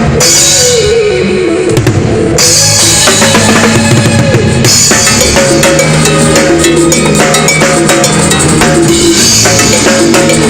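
LP timbales played with a drum beat over cumbia music, with bass and keyboard notes and sliding keyboard notes in the first few seconds. Rimshot-like hits run through it.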